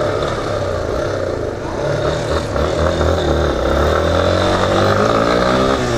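Yamaha XTZ 250 Lander's single-cylinder four-stroke engine running under load while riding, its pitch rising steadily through the second half as the bike accelerates.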